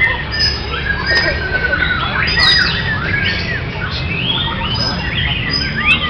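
White-rumped shama (murai batu) singing a fast run of varied whistles and trills, sliding up and down in pitch, with other birds singing over it. A steady low rumble runs beneath.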